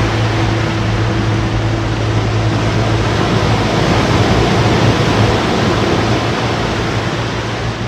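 Steady drone of a boat motor over the hiss of sea water, running evenly.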